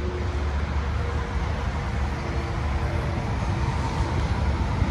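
A vehicle engine running steadily: a low rumble with faint steady hums over it.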